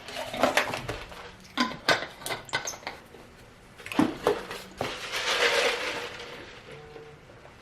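Close-miked mukbang eating sounds: a quick run of wet mouth clicks and lip smacks while chewing, with a longer breathy rush of noise about five seconds in.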